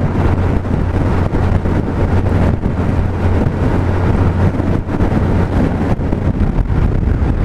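Wind buffeting a helmet-mounted microphone at road speed over the steady drone of a 2001 Suzuki Hayabusa's inline-four engine cruising.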